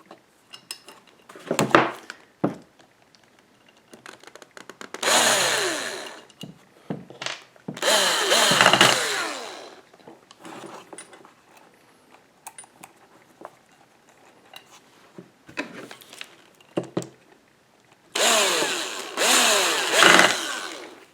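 A handheld power drill driving screws in three short bursts, its motor whine dropping in pitch within each burst, while the lathe's two ground wires are reattached. Small clicks and knocks of parts being handled come between the bursts.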